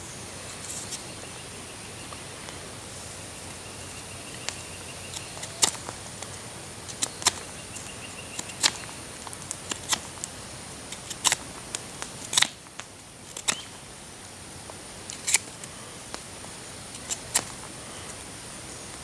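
Knife whittling a wooden stick: irregular, sharp cutting and scraping strokes, a dozen or more, over a steady background hiss.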